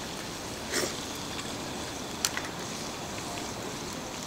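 Wood fire burning in a small metal fire stand: a steady hiss with two sharp pops, about a second in and again past two seconds.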